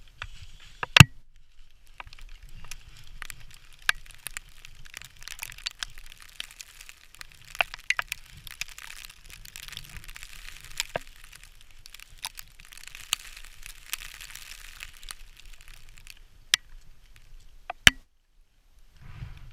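Boots scraping and knocking against icy rock and rime ice while rappelling, with a hiss of scraped ice and snow and scattered sharp cracks and knocks. The loudest knock comes about a second in, another sharp one near the end.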